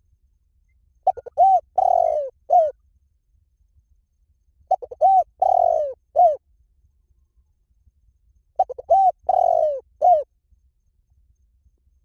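Spotted dove cooing: three identical phrases about four seconds apart, each a couple of quick short notes, a longer falling coo and a short last note.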